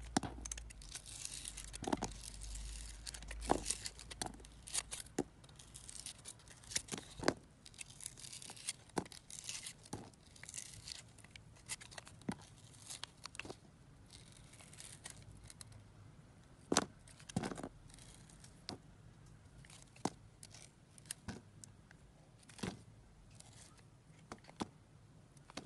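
Knife blade shaving and cutting through a bar of soap with a glittery coating: crisp, irregular crackling cuts one after another, with the loudest pair about two thirds of the way in.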